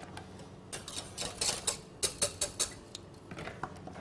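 Light clatter of kitchen utensils and stainless-steel pans: a quick run of sharp clicks and knocks for about two seconds, then a few fainter ones near the end.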